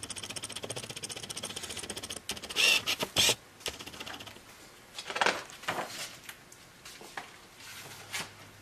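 A hardcover picture book being handled and its pages turned: a fast, even rattle for about two seconds, then several sharp paper rustles and knocks.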